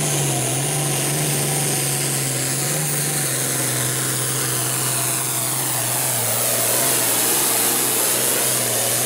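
Hot farm class pulling tractor's diesel engine running flat out under load while pulling a weight-transfer sled: a steady heavy drone with a high whine and hiss on top that drops in pitch through the middle.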